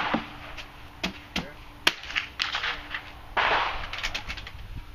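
A string of sharp cracks and clicks from the shooting range, the loudest a little before two seconds in: gunshots from the firing line mixed with the metallic clicks of a Ruger SR556 rifle being readied and shouldered on a bench rest.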